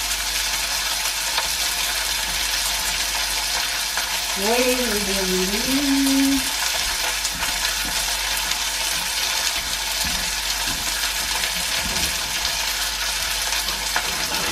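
Rump steaks sizzling in oil in a frying pan: a steady frying hiss, with the steaks done and ready to come out.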